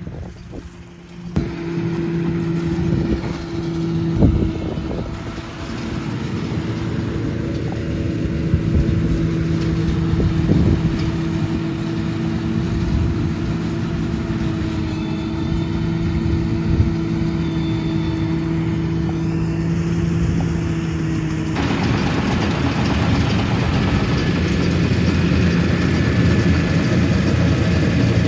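Farm machinery engine running steadily, a constant engine hum; about three quarters of the way through it changes abruptly to a louder, rougher machine noise.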